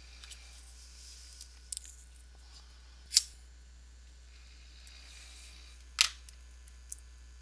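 Two short, sharp noises about three seconds apart, with a few fainter ticks, over a low steady hum.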